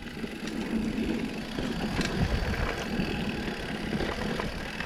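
Mountain bike rolling down a dirt trail: a steady rumble of wind and tyre noise with a few light clicks and rattles from the bike.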